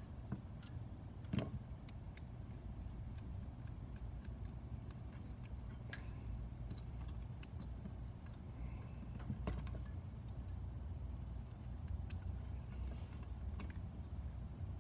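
Hands working a small carbon-fibre FPV drone frame apart: scattered light clicks and rattles of the plates and parts, the sharpest about a second and a half in, over a steady low hum.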